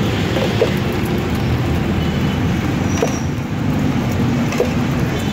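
Steady low rumble of street traffic around a roadside food stall, with a few light taps.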